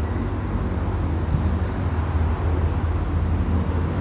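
Steady low outdoor rumble of ambient background noise, such as distant traffic or wind, picked up through a smartphone's built-in microphone.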